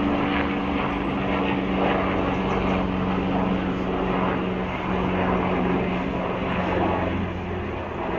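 Helicopter flying overhead: a steady engine and rotor drone with a constant low hum that holds at one level.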